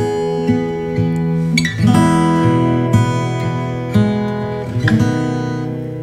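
Background music: acoustic guitar, plucked and strummed, with chords changing about once a second.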